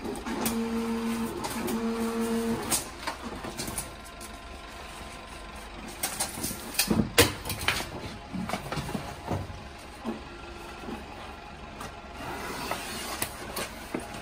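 Vinyl cutting plotter at work on a sticker. Its motors give two short stretches of steady hum in the first few seconds, then scattered clicks and taps follow over a low background hum.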